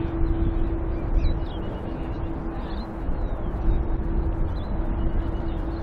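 Steady low rumble of a Boeing 787-8 jetliner's engines on final approach, with a faint steady hum. Birds chirp and call over it now and then.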